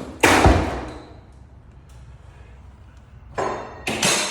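Heavy blows breaking into drywall to open the wall: one hard hit just after the start, then two more near the end. The last hit rings on with a metallic clang.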